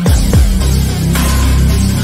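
Electronic background music with a deep, heavy bass line and punchy kick drums that drop in pitch, two of them close together near the start.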